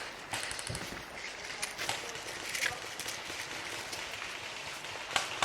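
Outdoor field noise with a few scattered sharp cracks and a short rapid run of clicks, typical of airsoft guns firing during a game.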